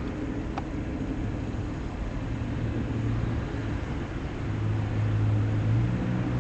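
Steady low rumble over a background hiss, with a low hum that grows louder from about halfway through and a faint click near the start.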